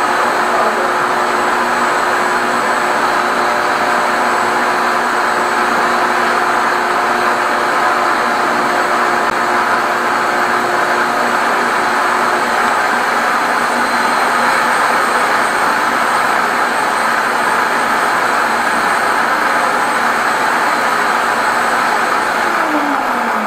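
Drain suction machine running steadily through its corrugated hose, a loud even rush with a steady motor hum; near the end the motor's pitch drops as it winds down.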